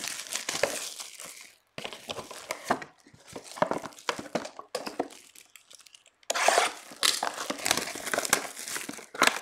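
Clear plastic shrink wrap being torn off a sealed trading card box and crumpled in the hand: irregular bursts of tearing and crinkling, with short pauses and the loudest stretch starting about six seconds in.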